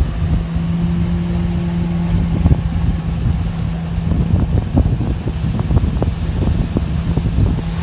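Duramax diesel pickup driving on a muddy dirt road: a steady engine drone with frequent short knocks and rattles throughout.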